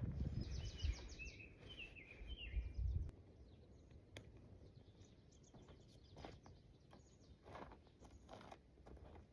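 A songbird singing a short run of high chirps over a low rumble, then quieter with faint footsteps and rustling on a trail.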